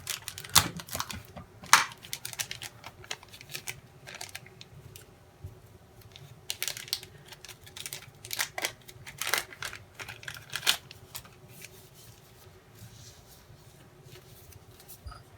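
Thin plastic model-rocket parachute crinkling and rustling as it is handled and folded, in irregular clusters of crackles that thin out over the last few seconds.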